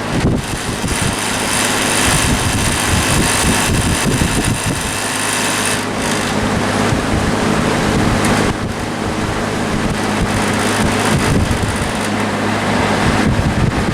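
Vintage Westinghouse metal box fan running fast: a steady rush of air over the hum of its shaded-pole motor. Through it the guard rattles against the frame, shaken by vibration from the motor.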